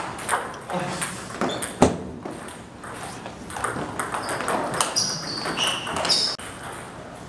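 Table tennis ball clicking off bats and table during a rally, with one sharp hit about two seconds in, over background chatter and ball clicks from other tables.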